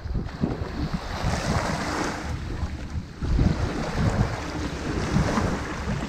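Sea waves breaking and washing up a shingle beach: the surf hiss swells about a second in and again near five seconds, over a rumble of wind on the microphone.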